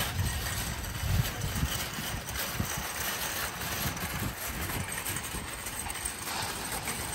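Metal wire shopping cart loaded with grocery bags rolling over parking-lot asphalt, its wheels and basket rattling steadily.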